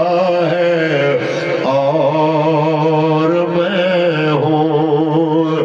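A man singing a naat unaccompanied into a microphone. He draws out long, wavering melismatic notes between the lines of the verse.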